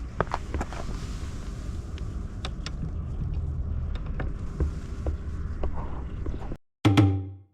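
Low rumbling wind buffeting the microphone outdoors, with scattered sharp clicks and taps; it cuts off suddenly about six and a half seconds in, and a brief pitched sound follows near the end.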